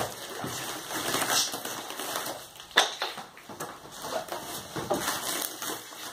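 Cardboard box and packing paper rustling and crinkling as a parcel is unpacked by hand, with scattered clicks and one sharp crack about three seconds in.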